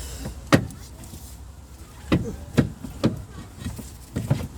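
Irregular sharp metallic knocks and clanks of tools and car parts being handled during a steering rack installation: about six separate strikes, the loudest about half a second in, over a steady low hum.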